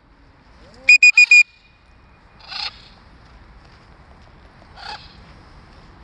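Four quick, loud beeps on one high pitch about a second in, then two brief, fainter harsh squawks, typical of macaws calling in flight.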